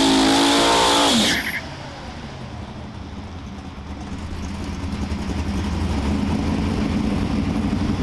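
Fox-body Ford Mustang's engine held at high revs through a burnout, its pitch climbing, then cut off sharply about a second in. After that the engine runs at a lower, quieter rumble that grows steadily louder as the car rolls forward toward the line.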